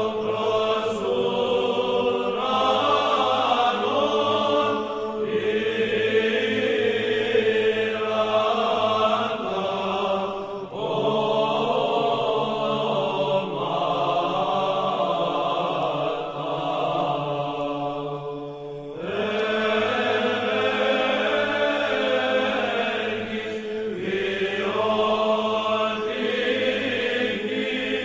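Background music of sustained choral chanting: voices hold long notes over a steady low drone, the phrase changing about ten and nineteen seconds in.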